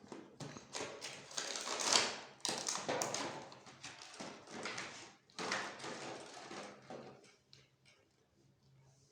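A toy and its packaging being handled: irregular rustling with clicks and taps, busiest over the first seven seconds, then a few scattered ticks.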